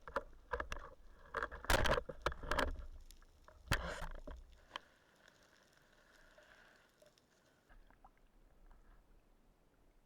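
Irregular splashing and sharp knocks in water, busiest in the first five seconds, then fading to faint.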